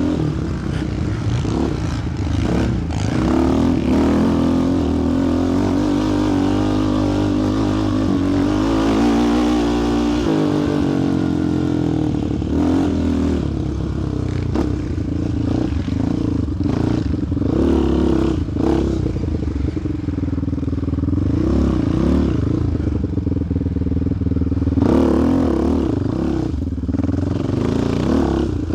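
Single-cylinder four-stroke sport quad engine running under way, its revs rising and falling with the throttle as it is ridden, with a clear drop in pitch about ten seconds in. There is some rattling from the machine over the ground.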